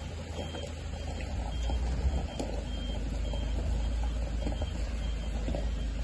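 A vehicle's reversing alarm beeping faintly: a steady series of short, high beeps over a steady low rumble.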